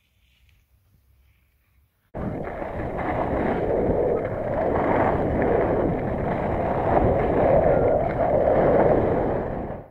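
Steady rushing noise of skiing downhill: wind on the microphone and skis sliding over snow. It starts suddenly about two seconds in and cuts off suddenly near the end, with near silence before it.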